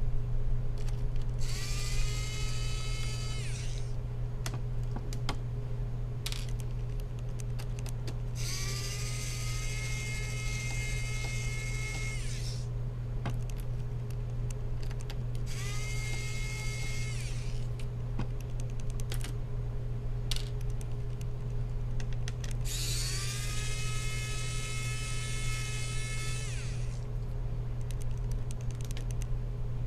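Small electric screwdriver running in four bursts of about two to four seconds, its motor whine rising in pitch as each burst starts, with small clicks in between, typical of screws being driven out during laptop disassembly. A steady low hum lies underneath.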